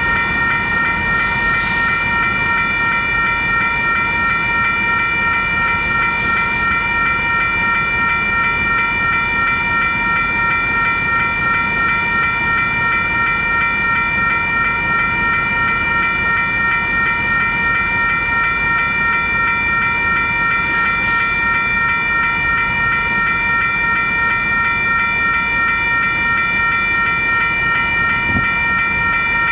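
Railroad grade-crossing bell ringing on and on with an even pulse, over the low rumble of a passing Union Pacific train.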